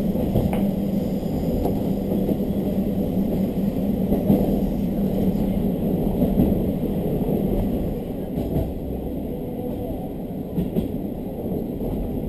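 A diesel railcar running on the Hidaka Main Line, heard from inside the carriage: a steady engine drone mixed with wheel and rail noise. The drone's hum fades and the sound drops a little about eight seconds in, as the train eases off power.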